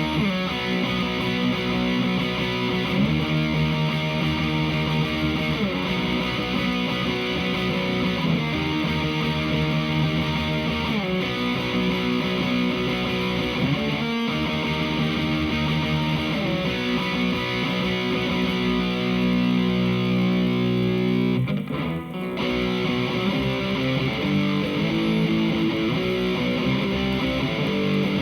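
Electric guitar played through the overdrive (lead) channel of a Hughes & Kettner Attax Metroverb 50-watt transistor amp: distorted chords held for a few seconds each, sliding up and down the neck between some of them, with a short break about three quarters of the way through.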